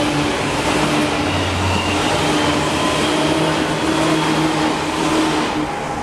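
Seibu Shinjuku Line electric train passing a level crossing, its wheels and motors making a loud rumble that falls away about five and a half seconds in as the last car clears. The crossing's warning bell keeps ringing through it.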